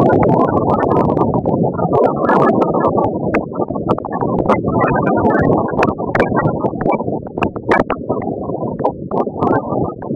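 Loud, rough wind buffeting and road rumble on the microphone of a phone carried on a moving vehicle, with frequent crackles.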